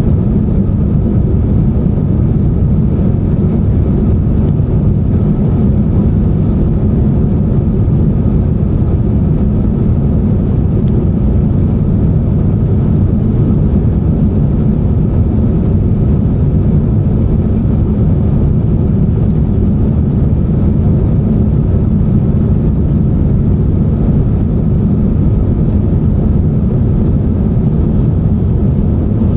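Steady cabin roar of an Airbus A350-900 in flight: the Rolls-Royce Trent XWB engines and the rush of air, heard inside the passenger cabin as a deep, even rumble with a faint high tone over it.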